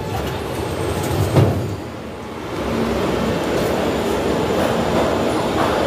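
Moscow Metro train at the platform: a steady rumble and hiss of the train and station, with one sharp thump about a second and a half in.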